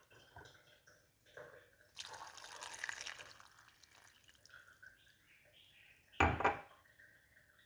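Liquid being poured for a second or two, about two seconds in, then a single loud knock a few seconds later as something is set down.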